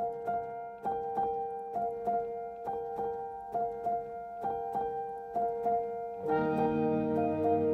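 Background keyboard music: a piano-like instrument plays an even run of notes, and lower, fuller notes join about six seconds in.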